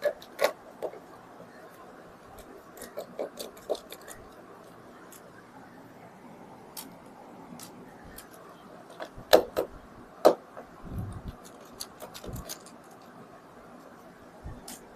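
Scattered small clicks and taps of a precision screwdriver working the screws out of a laptop's bottom cover, with the loose screws being set down; the sharpest clicks come about nine and ten seconds in, followed by a low knock.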